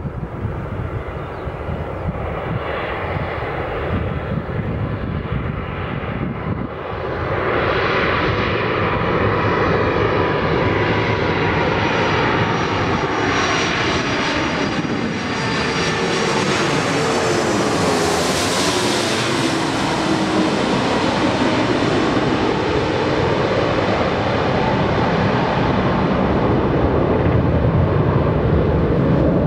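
Airbus A330-200 airliner on final approach with its two Rolls-Royce Trent 700 turbofans, growing louder as it comes in low and passes overhead. The engine whine sweeps down in pitch as it goes by, and a rushing hiss peaks as it passes directly above. A steady jet rumble follows as it heads away to land.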